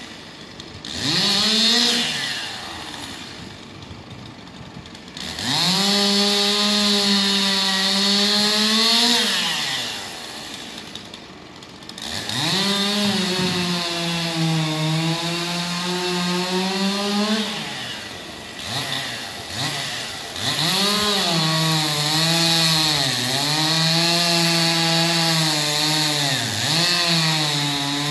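Chainsaw cutting through a felled tree trunk in several long cuts. Each time the engine revs up, drops in pitch and holds under load through the wood, then rises briefly as it comes free and falls back between cuts.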